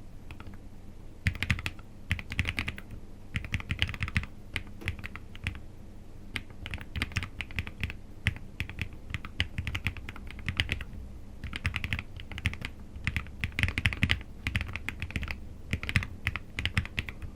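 Lofree Flow 84 low-profile mechanical keyboard being typed on: quick runs of keystrokes in bursts of a second or so, separated by short pauses.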